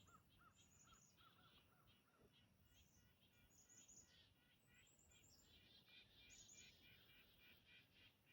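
Faint songbirds chirping in the woods: a run of short repeated notes in the first two seconds over higher chirps, with more birds joining in a denser chorus in the second half.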